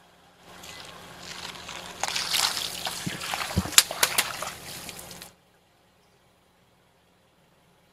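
Water balloons bursting under a car tyre: water splashing and sloshing, building up, with a few sharp pops about four seconds in, then cutting off abruptly.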